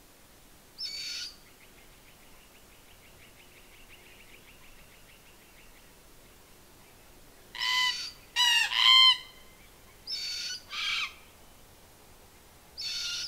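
Red-capped parrots giving short, rasping calls, about seven in all, with the loudest three coming close together around the middle. A fainter rapid trill runs underneath during the first half.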